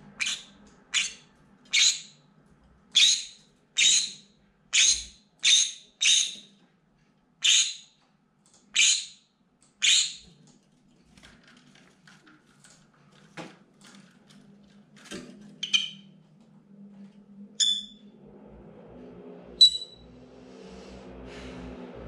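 Green-cheeked conure screaming: a run of about eleven loud, short, shrill shrieks roughly one a second for the first ten seconds. Then come a few scattered, quieter calls and one last sharp shriek near the end.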